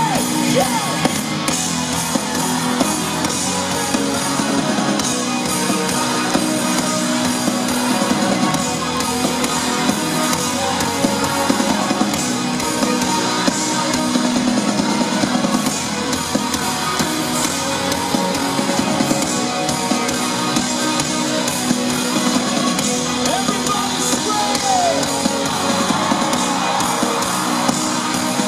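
A rock band playing live in an arena, electric guitar and drums, heard loud and dense from within the crowd, with the audience's shouts mixed in.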